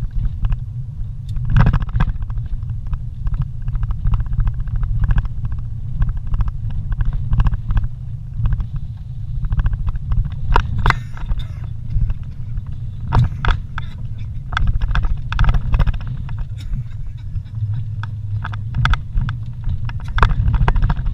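Vehicle driving over a rough dirt road, heard from inside the cab: a steady low rumble with frequent knocks and rattles as it goes over bumps.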